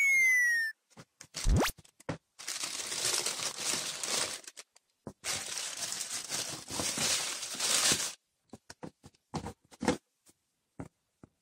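Tissue paper crinkling and rustling inside a cardboard shoebox as it is unpacked, in two long stretches, with scattered small knocks and clicks of the box being handled afterwards. A short falling electronic tone sounds at the very start.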